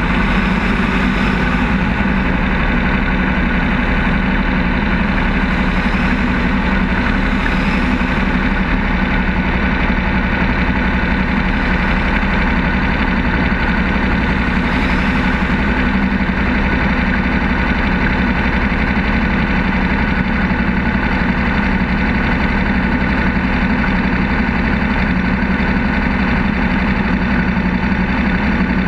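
Lola T70 Spyder's V8 engine idling steadily, heard from on board the car, its pitch holding level throughout.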